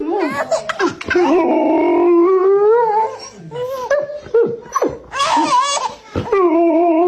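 A dog howling in long, wavering calls, several in a row.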